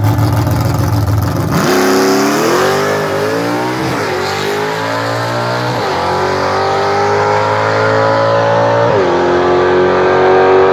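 First-generation Chevrolet Camaro drag car rumbling at the line, then launching about one and a half seconds in and accelerating hard down the strip with a rising engine note. The pitch drops and climbs again three times as it is shifted up through the gears of its manual gearbox.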